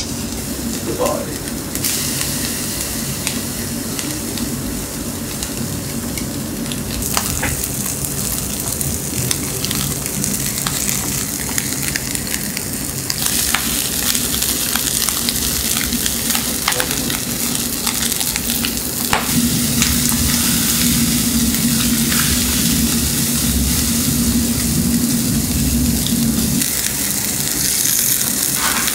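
Large skin-on pieces of chicken sizzling on the wire grill over a binchotan charcoal fire, with scattered pops and crackles as the fat spits. The sizzle grows louder in steps about 2, 7 and 13 seconds in.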